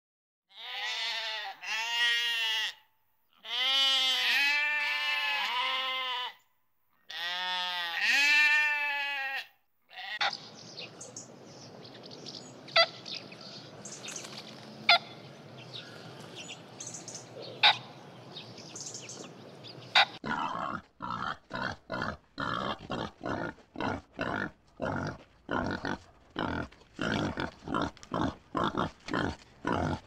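Sheep bleating in several long, wavering calls. Then about ten seconds of steady hiss-like noise with a few sharp clicks, followed by pigs grunting in a quick rhythmic series, two or three a second.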